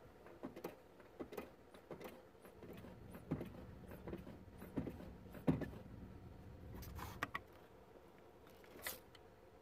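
Faint, irregular clicks and light knocks of a wrench and hands working the bleed screw on a clutch slave cylinder while the clutch hydraulics are bled, the sharpest knock about five and a half seconds in.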